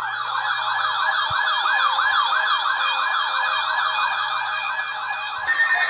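Weather radio receiver's siren-style alert, a tone sweeping up and down about four times a second as it picks up the tornado drill alert; shortly before the end it switches to a steady high alarm tone.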